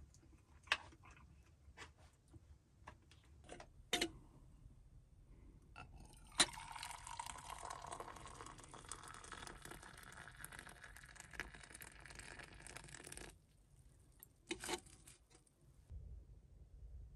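Liquid being poured into a container, a steady rush lasting about seven seconds, with scattered clicks and knocks before and after it.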